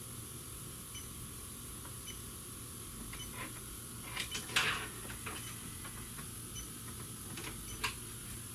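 Faint clicks and rattles of small parts or tools being handled, loudest about four and a half seconds in and again near the end, over a steady low hum.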